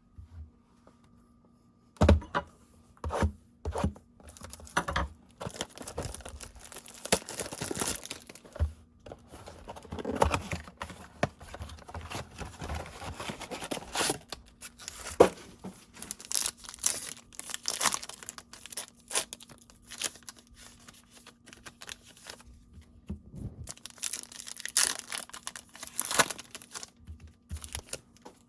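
Foil wrappers of Topps baseball card packs being torn open and crinkled, in long crackly stretches with short pauses. A few sharp clicks and taps come about two seconds in.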